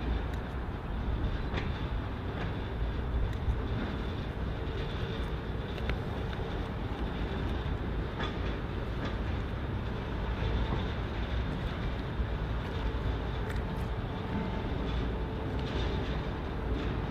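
Freight train rolling by: a steady low rumble with scattered sharp clicks throughout.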